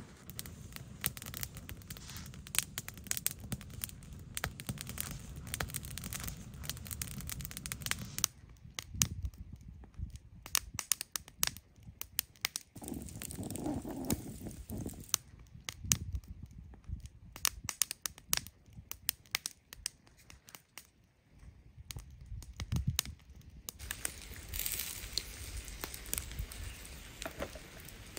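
Wood campfire crackling with many sharp pops, with fish roasting on sticks over the flames.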